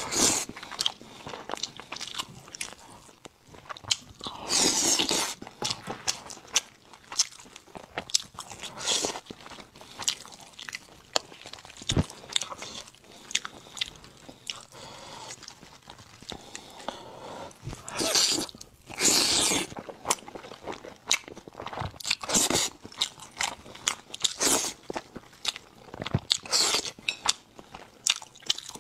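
Close-miked eating of sauce-glazed braised meat on the bone: biting and chewing, with loud bursts every few seconds between quieter chewing clicks.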